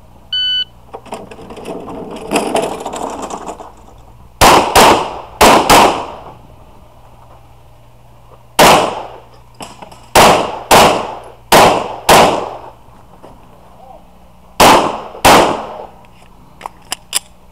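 A shot timer's short start beep, then a Glock pistol fired twelve times in three strings: four quick shots, six shots, then two. Each shot is a sharp crack that trails off in an echo, and a couple of seconds of rushing noise come between the beep and the first shot.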